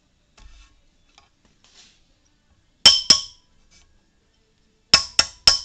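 Sharp metallic clinks with a bright ringing tone: two strikes about three seconds in, then a quick run of about four a second near the end, as metal parts are struck or tapped together.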